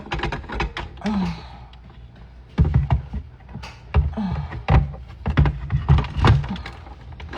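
A run of irregular knocks, taps and clicks from objects being handled close to the microphone, most likely batteries going into a small device.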